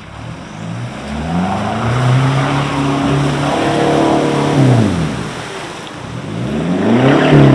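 Vehicle engine revving up, holding steady, easing off, then revving up again near the end.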